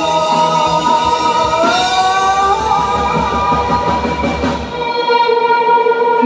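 Live rock band playing: electric guitars hold and bend sustained notes over drums. The low end drops out about five seconds in, and the guitar tones ring on.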